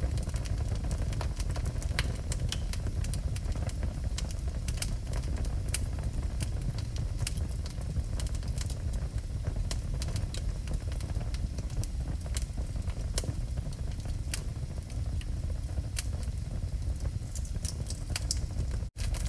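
Wood fire burning in a fireplace, with a steady low rumble of the flames and frequent sharp crackles and pops. The sound drops out for a split second near the end.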